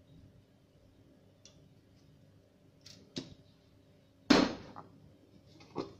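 Kitchen handling noises: a few sharp clicks and knocks, the loudest a little over four seconds in with a short ringing tail, over a faint steady hum.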